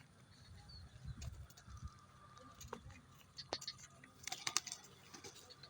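A young cage bird, faint: a few soft thuds, scattered sharp clicks with a cluster of them about four seconds in, and a brief faint chirp.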